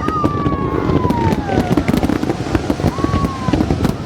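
Fireworks crackling and popping in a dense, rapid patter, with a whistle-like tone sliding slowly downward over the first second and a half and a shorter one about three seconds in.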